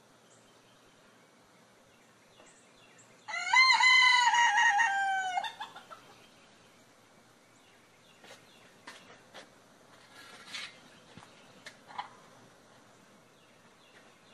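A rooster crows once, about three seconds in: a single loud call of about two and a half seconds that rises, then wavers and falls. A few light clicks and scuffs follow.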